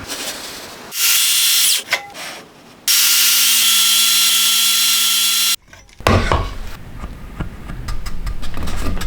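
Circular saw running in two bursts, a short one of about a second and then a steady one of nearly three seconds that cuts off suddenly. Irregular knocks and scraping of wood being handled follow.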